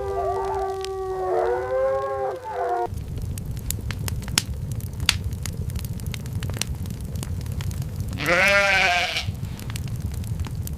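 Livestock bleating: one long held call that breaks off about three seconds in, and a shorter bleat that rises and falls near the end. Underneath, a steady low rumble with scattered crackling ticks.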